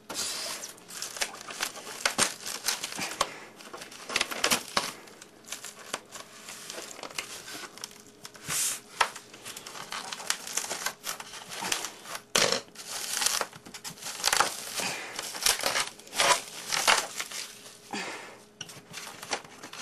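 Clear plastic wrapping crinkling and rustling in irregular bursts as it is pulled off a model railway coach by hand.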